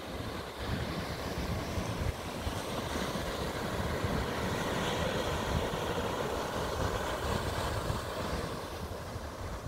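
Ocean surf washing onto a sandy beach, mixed with wind buffeting the microphone in gusts. The wash swells in the middle and eases off near the end.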